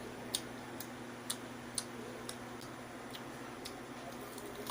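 Regular light ticking, about two sharp clicks a second, over a steady low hum.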